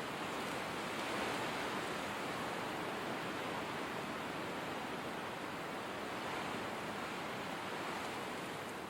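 Blizzard wind blowing as a steady hushing noise, swelling slightly about a second in.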